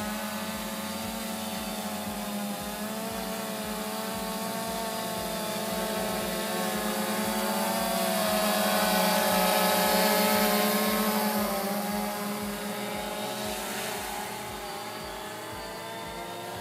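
DJI Phantom Vision 2 quadcopter's four propellers whining steadily as it flies low, the pitch wavering slightly. The sound grows louder toward the middle and eases off near the end.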